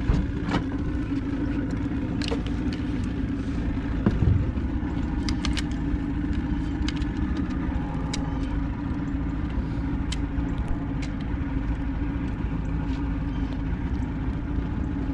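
Boat's outboard motor idling steadily in neutral, with scattered light clicks and a louder knock about four seconds in.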